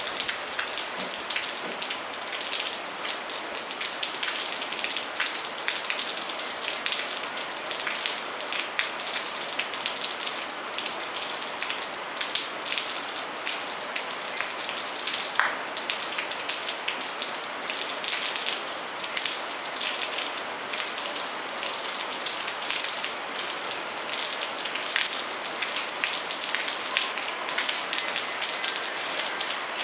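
Steady rain falling on a courtyard floor and garden foliage: a dense, even patter of drops with sharper individual drops standing out now and then.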